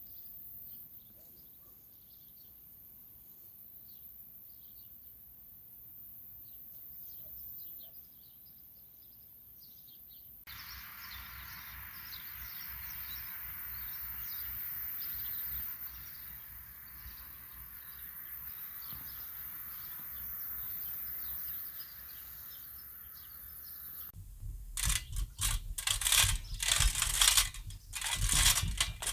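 Birds chirping over a steady faint hiss of open-air ambience; about 24 seconds in, loud irregular knocks and clattering of work start.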